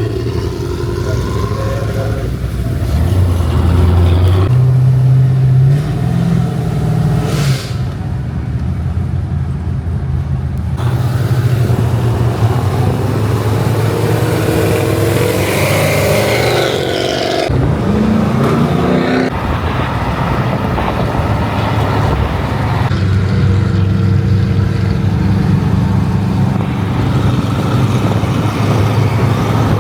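Car engines running and being revved, with the pitch climbing and dropping a few times about halfway through.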